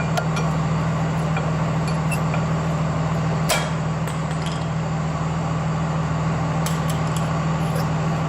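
A steady low drone, like a running engine or machine, with scattered light metallic clinks and one sharper clack about three and a half seconds in, as brake caliper parts and pads are handled.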